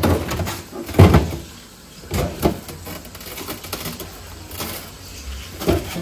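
Knocks and bumps from things being handled in a home freezer: a handful of separate hits, the loudest about a second in.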